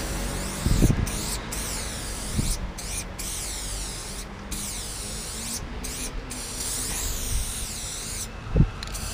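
Aerosol spray-paint can hissing in long strokes, broken by frequent short stops as the nozzle is let go. Two dull thumps come through, about a second in and, louder, near the end.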